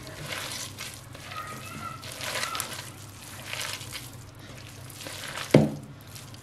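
A hand squelching through wet shredded-cabbage pakora batter in a glass bowl, working in a little added water. A single sharp knock comes about five and a half seconds in.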